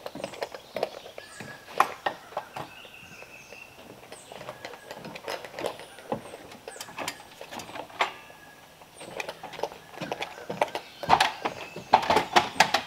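Irregular footsteps and knocks on a wooden plank deck as an aluminium extension ladder is moved along a log timber frame. A louder run of knocks and clanks comes near the end, as the ladder is set against a beam and climbed. Birds chirp in the background.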